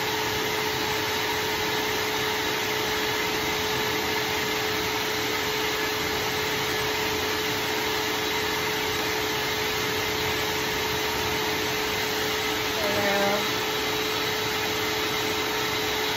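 Pet grooming dryer blowing steadily, a motor with a constant hum-tone under even air noise. A short pitched sound rises over it about three-quarters of the way through.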